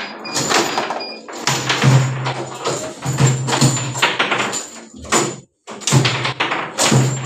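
Fast foosball play: a rapid clatter of the ball and plastic players cracking against a wooden table, with the rods knocking as they are spun and slammed.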